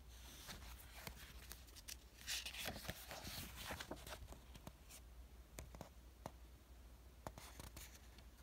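Faint rustle of a book page being turned by hand, loudest for a second or two about a third of the way in, with scattered light clicks and taps of fingers on the paper.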